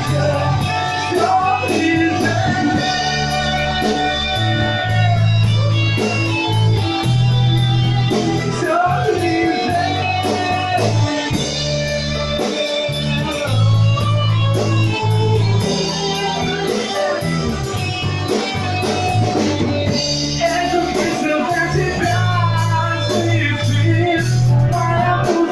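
A band playing a song: guitar over a bass line and drum kit, with a steady beat.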